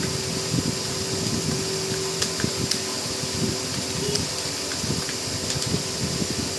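Fast, continuous computer-keyboard typing, several keystrokes a second, over a steady fan hum.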